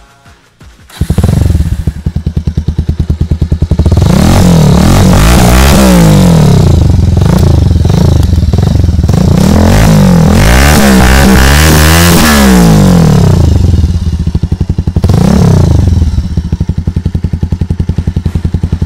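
Bajaj Pulsar 220's single-cylinder engine running through an Akrapovic slip-on silencer with its dB killer removed: idling from about a second in, then revved again and again in quick rising-and-falling blips, with one more blip later before it drops back to idle. The open, loud exhaust note comes from the missing dB killer.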